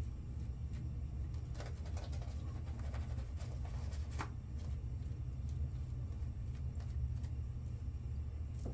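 A steady low hum, with a few faint short scrapes of a double-edge safety razor drawn across stubble in the first half.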